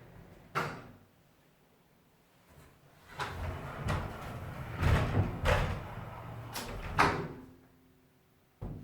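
Cabinet doors being opened and shut. There is a sharp knock about half a second in, then a busy stretch of knocks and rubbing from about three to five and a half seconds, and two more sharp knocks near the end.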